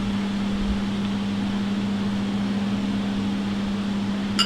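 Steady hum of a restaurant kitchen's ventilation fan, with one low droning tone over an even rushing hiss, and a single short clink of a metal spoon near the end.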